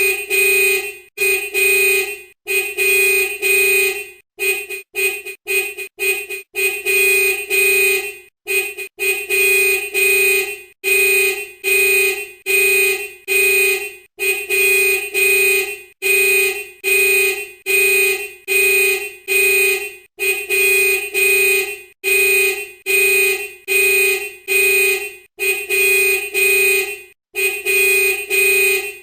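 Vehicle horn honking in repeated steady blasts, most about a second long with short gaps between, and a quick run of short toots between about four and nine seconds in.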